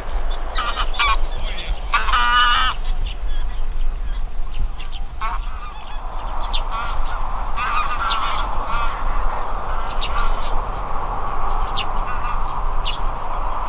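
A flock of greylag geese honking, many overlapping calls in quick succession, loudest about two seconds in.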